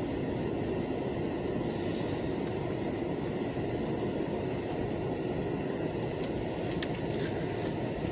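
B&P freight train rolling past, a steady, even rail noise with a few faint clicks about seven seconds in.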